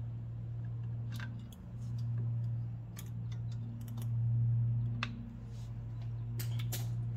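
Sharp metallic clicks and clinks, scattered and irregular, as vise-grip pliers compress and lock a brake-shoe hold-down spring and cup onto a drum-brake backing plate, over a steady low hum.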